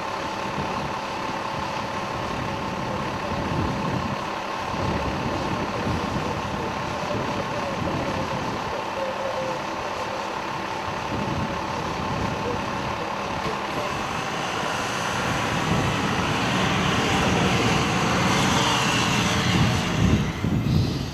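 Fire engine's diesel idling with a steady whine, then running up louder as the truck pulls away close by near the end.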